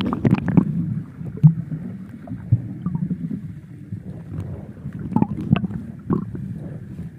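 Muffled underwater sound from a submerged camera: a steady low rumble of moving water with scattered sharp clicks and pops as snorkelers swim and kick close by.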